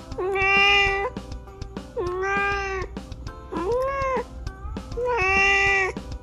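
A domestic cat meowing: four long, drawn-out meows about a second each, the third lower in pitch and rising then falling.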